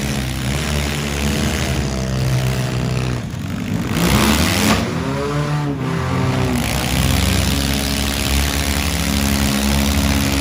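Small four-cylinder demolition derby car engines revving hard, their pitch rising and falling, as the cars drive into each other; loudest about four seconds in.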